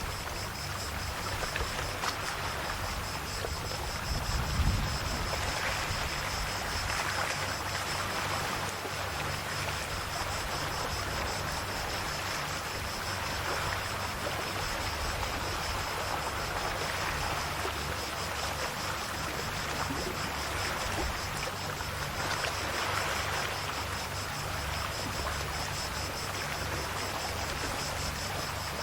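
Small, calm sea waves washing in on the shore, swelling gently every few seconds, over a steady high insect buzz. A brief low thump about five seconds in.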